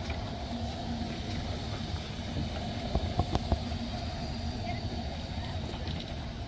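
Narrow-gauge steam locomotive standing at the platform: a steady low rumble and hum, with a few sharp clanks about three seconds in and faint voices in the background.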